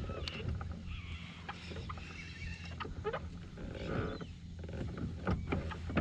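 Knocks, clicks and creaks from a fishing kayak and its rod and reel while a hooked trevally is played, over a steady low hum.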